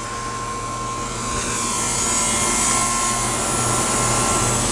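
Outdoor air-conditioner condensing unit running: a steady electrical hum and a fixed whine under a fan whoosh that grows louder about a second and a half in.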